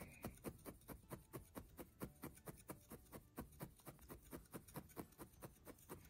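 Felting needle stabbing again and again into a layer of wool on a felting pad: faint, even pecking at about five strokes a second.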